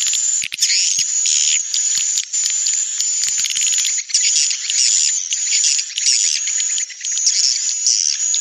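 Recorded swiftlet lure sound for a swiftlet house: a dense, fast, high-pitched chirping and twittering of edible-nest swiftlets, with a thin steady high whistle running under it. A call sound (suara panggil) is mixed in stereo with a roosting sound (suara inap).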